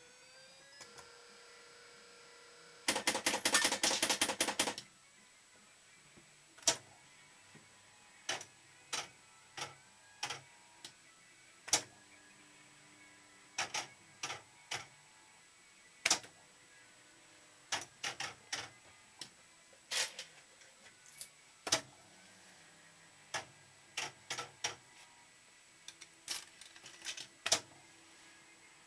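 Ace Silver Machine fruit machine's reel mechanism clicking as it plays. About three seconds in there is a dense two-second run of rapid clicks, the loudest part. After that come single sharp clicks at irregular intervals while the reels spin.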